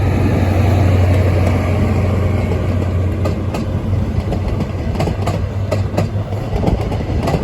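Great Western Railway High Speed Train (Class 43 diesel power cars) passing, its engine giving a steady low drone while the wheels click over rail joints. The clicks start about three seconds in and come more often towards the end.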